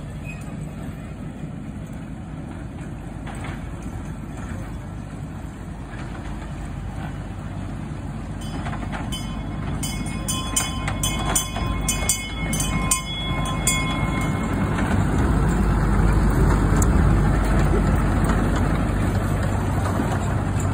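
Miniature diesel park train running along its track, its low rumble growing steadily louder as it approaches and draws up close. About halfway through there is a run of sharp clicks and brief ringing tones.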